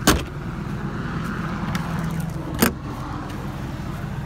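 Two sharp clacks of an RV's exterior storage compartment doors, one shut and the next latched open about two and a half seconds later, over a steady low hum.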